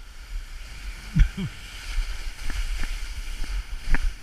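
GT Snowracer ski-sled sliding down a snowy slope: a steady hiss of its skis scraping over the snow. A few knocks and thumps come as it rides over bumps, the loudest about a second in and another near the end.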